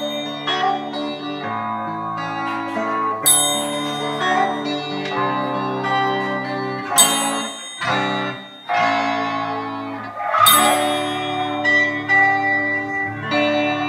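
A live instrumental tune on electric bass and electric guitar, held notes changing every second or so, with a triangle struck now and then; its bright ring stands out about three, seven and ten seconds in.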